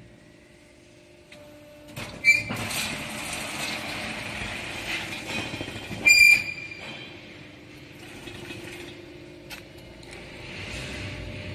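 Concrete paver block machine working: a steady low mechanical hum with scattered clanks, and two short, sharp metallic squeals, the first with a knock about two seconds in and a louder one about six seconds in.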